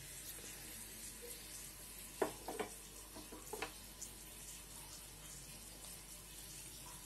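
Dried red chillies frying in hot oil in a small tempering pan: a faint, steady sizzle. A short cluster of knocks comes about two to three and a half seconds in, as the pan is shifted on the gas burner's grate.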